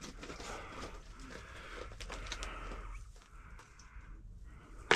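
Scuffing and shuffling of a person moving over loose rock and dirt in a cramped cave, with small clicks throughout and one sharp knock near the end.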